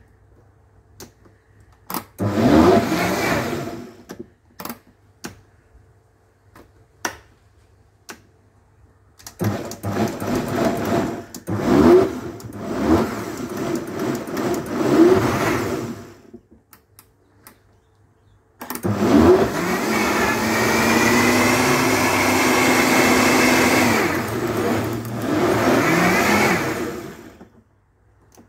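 Countertop blender motor blending a thick banana smoothie in three runs: a short one of about two seconds, then about seven seconds, then about nine seconds. Each run spins up with a rising whine and then holds a steady pitch. Small clicks sound in the pauses between runs.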